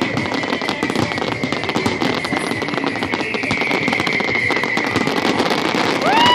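Fireworks crackling and popping in a dense, near-continuous rattle. Right at the end, a short tone begins that rises and then falls in pitch.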